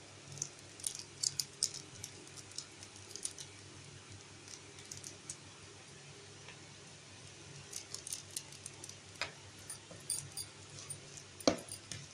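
Small plastic food-colour bottle being handled: light clicks and ticks as the cap is twisted open and the bottle is tapped and shaken over a bowl, in two bursts, with a couple of sharper knocks near the end.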